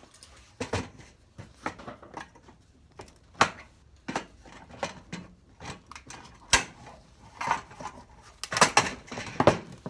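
Screwdriver prying a light ballast out of its sheet-metal mount: irregular metallic clicks, scrapes and knocks, with the loudest cluster of knocks near the end as it comes free.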